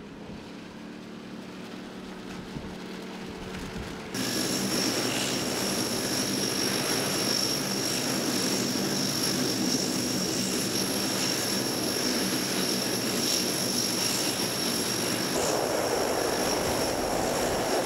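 Turboprop engines of an LC-130 Hercules running: a steady propeller drone with a high turbine whine. The sound jumps suddenly much louder about four seconds in.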